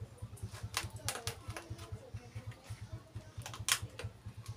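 Thin clear plastic crackling and clicking as hands handle it around a potted coconut husk: a few sharp clicks, the loudest near the end, over a low pulsing hum.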